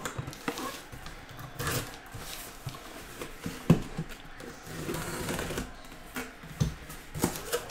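Cardboard box being handled on a table: irregular scrapes, rustles and knocks, the sharpest knock a little under four seconds in.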